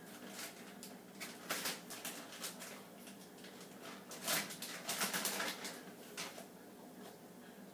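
Rummaging through a pantry: packages and other items rustling and knocking as they are moved about on the shelves, in a string of short bursts, loudest about four seconds in.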